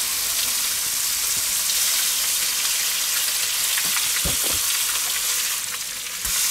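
Burger patty, bacon and onion rings sizzling steadily in a hot grill pan, with a couple of dull knocks a little over four seconds in as the pan and food are handled.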